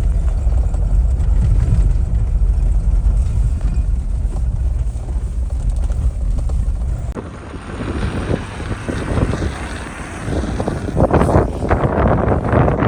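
Strong wind buffeting the microphone at a high mountain pass: a heavy low rumble for about seven seconds, then an abrupt change to a gustier, hissier rush.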